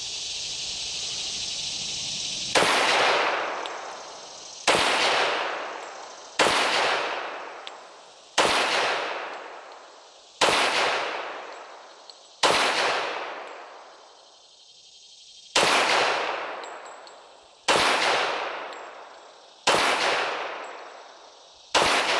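Ruger SR1911 pistol in .45 ACP firing a ten-round magazine: ten single shots roughly two seconds apart, with a longer pause after the sixth, each report trailing off over a second or more.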